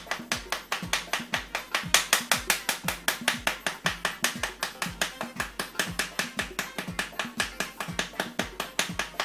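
Background music with a steady, fast beat: even ticking about five times a second over low thumps roughly twice a second.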